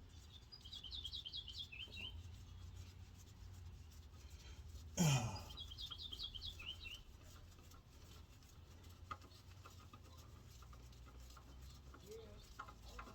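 A small bird singing two quick trilled phrases, each a run of about a dozen short high notes lasting about a second and a half, over a low steady hum. A brief loud sound falling in pitch comes about five seconds in, just before the second phrase.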